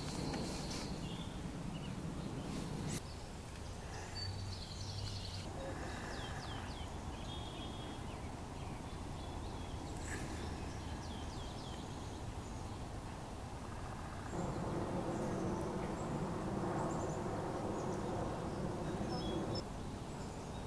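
Outdoor ambience with a steady background noise and scattered short chirps and calls of small wild birds. The background shifts abruptly several times.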